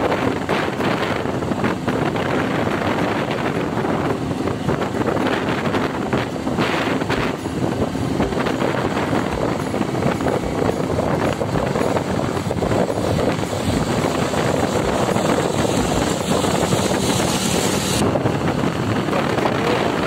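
Steady wind rushing over the microphone of a camera on a moving motorcycle, with the bike's engine and tyres running underneath.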